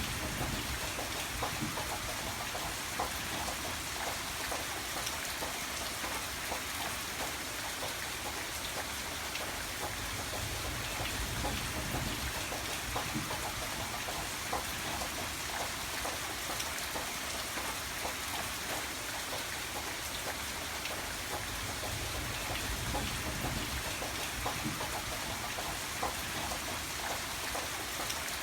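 Steady rain falling, with many close drops pattering on a surface over a continuous hiss and a soft low rumble that swells and eases.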